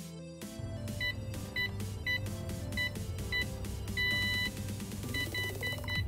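Electronic beeps from a keypad smart lock as it is being added to a Z-Wave network: several short beeps spaced apart, a longer beep about four seconds in, and a quick run of short beeps near the end, over background music.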